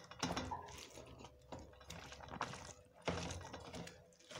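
Fingers mixing cooked rice with dal on a steel plate, giving several short wet bursts.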